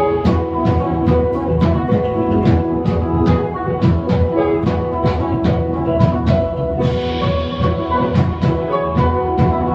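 A live band playing with drums hitting in a steady beat of about three strokes a second over held instrument notes, with a cymbal wash coming back in about seven seconds in.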